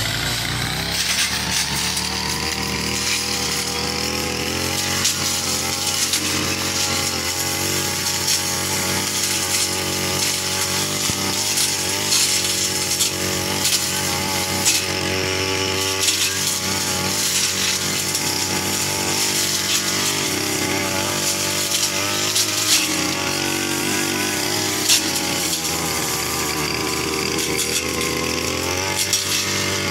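Brush cutter's small engine running steadily under load, its pitch wavering slightly at times, with occasional sharp ticks.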